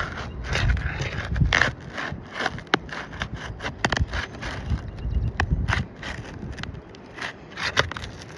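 Asphalt 3-tab roof shingles being pried up and unsealed with a flat hand tool: irregular crackling and scraping as the sealant strips break loose and the shingle rubs against the courses around it.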